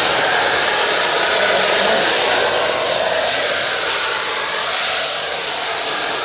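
A high-pressure jet hissing steadily and loudly, with no break.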